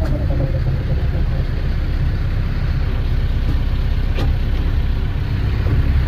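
A machine's engine running steadily with a low rumble. A brief rising squeak comes about four seconds in.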